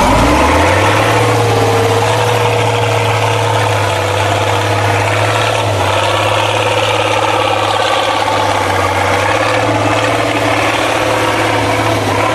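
Six-wheeled off-road trial truck's engine revving up within the first second, then held at steady high revs under load as the truck works through a mud pit.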